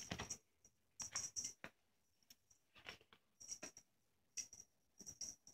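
Faint, scattered light metallic clinks with soft rustling, in short clusters: a cat's collar tag jingling as it scrambles and paws on a comforter while playing.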